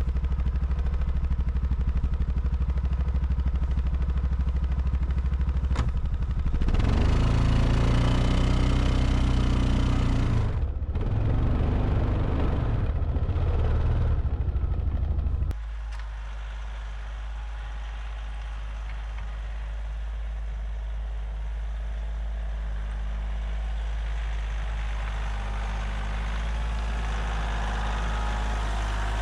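An engine running steadily at a low speed. About a third of the way in it gets louder and revs up and down for several seconds. Then it drops abruptly to a quieter, lower running sound that slowly grows louder.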